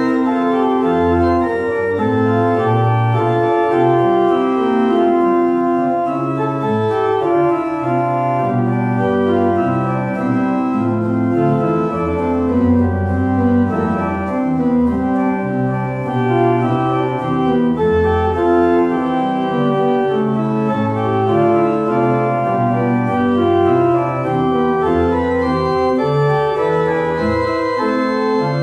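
Organ playing a steady chordal piece, with sustained chords changing every second or so over a moving bass line.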